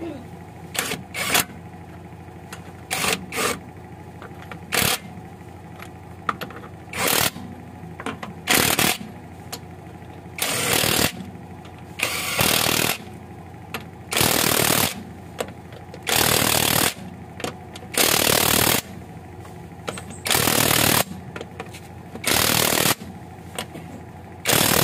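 Cordless impact wrench running the wheel's lug nuts down: short blips at first, then about eight bursts of hammering, each about a second long and roughly two seconds apart, as each nut is driven tight.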